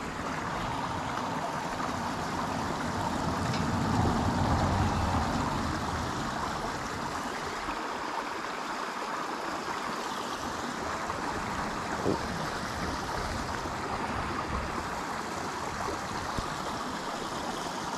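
Small rocky pocketwater stream rushing steadily over stones below. A low rumble swells and fades about four seconds in.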